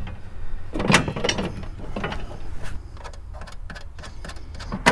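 Metal clicks and knocks of the steel brace and perforated metal panel of a cargo enclosure being handled and fitted together. There is a cluster of rattles about a second in, light scattered ticks after it, and two sharp clicks near the end.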